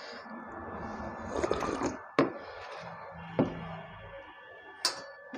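Slurping the leftover water of panta bhat (fermented watered rice) straight from a tipped steel plate, with three short sharp clicks spread through. A faint steady high tone hums underneath.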